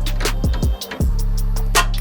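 Background music with a steady beat and bass line, briefly dropping out just before the one-second mark.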